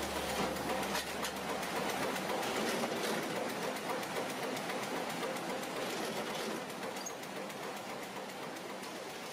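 Newspaper stacking machine and conveyor running with a steady mechanical clatter of irregular clicks, slowly fading out.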